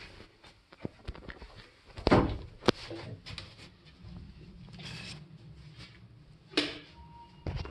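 Glass sauna door being opened by its wooden pull handle: a few sharp knocks and clunks, the loudest two close together about two seconds in, then a lighter rustle and another knock near the end.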